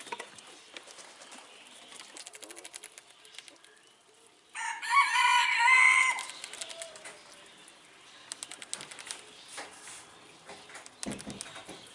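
A rooster crows once, loud and drawn out for nearly two seconds, starting about four and a half seconds in. Faint scattered clicking and ticking runs beneath it.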